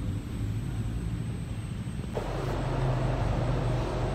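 Steady low rumble and hum of a large room's ambience. About two seconds in it cuts abruptly to a louder, hissier ambience.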